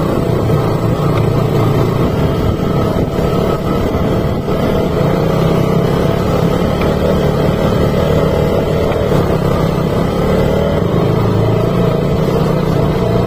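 Motorcycle engine running steadily under way, with road noise from riding over a rough gravel track.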